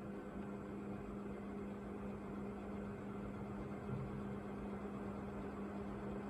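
A National F-560A1 56-inch industrial ceiling fan running, its motor giving a steady, even hum over a hiss of moving air.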